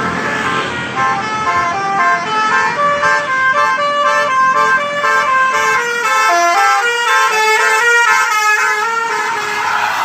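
Telolet horn on an Indonesian intercity bus: a set of tuned air horns playing a quick tune of short stepping notes. Near the end the tune gives way to the rush of the bus passing close.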